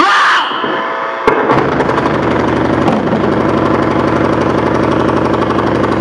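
Harsh electronic noise music: a bright squealing burst, then a sharp click about a second in, after which a dense wall of noise stutters in a fast, even pulse.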